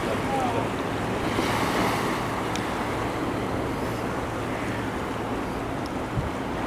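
Steady wash of sea surf and wind, with wind buffeting the microphone, and a brief low bump near the end.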